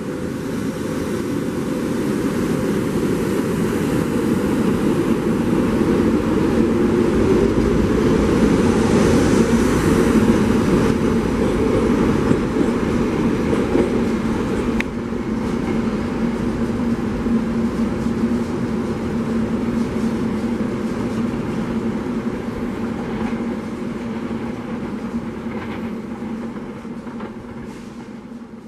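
SEPTA Silverliner IV electric multiple-unit train running past along the platform and pulling away, growing to its loudest about ten seconds in and then fading.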